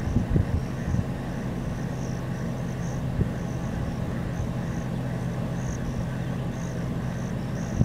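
Steady low engine-like hum, with faint high chirps repeating about twice a second.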